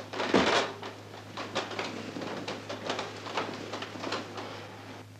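Cloth bedsheets rustling and swishing as a blanket is pulled and flung about on a bed, with a louder swish about half a second in. A low steady hum runs underneath.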